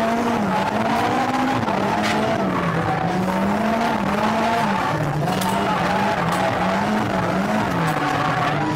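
Car engine heard from inside the cabin of a drifting car, running hard, its note rising and falling again and again with the throttle, with tyres squealing as the car slides.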